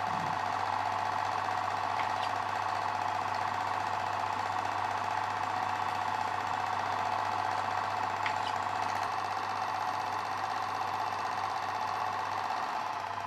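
Film projector running: a steady, rapid mechanical clatter with a low hum under it.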